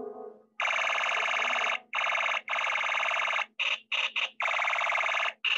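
A loud electronic alarm-like ringing warble in stop-start bursts: long stretches broken by short gaps, with a few quick short bursts in the middle, starting about half a second in. Just before it, a held musical note fades out.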